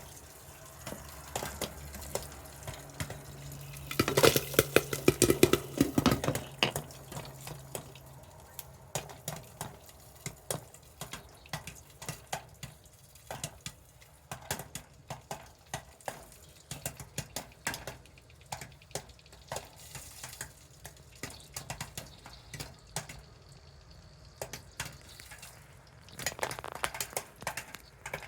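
Corn kernels popping into popcorn as they heat: irregular sharp pops and crackles, with a dense, loud flurry about four seconds in and another near the end.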